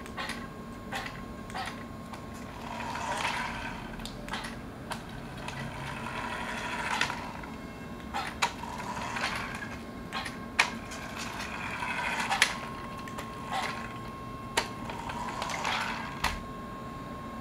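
Small electric motors of an Arduino RC car and its robotic gripper arm whining in repeated swells as the arm and car move, with many sharp clicks in between.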